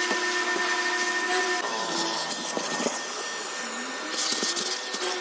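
Shop vacuum cleaning a car's interior, running steadily with a whine over hiss. About one and a half seconds in its tone changes and the sound turns rougher, with a few short knocks.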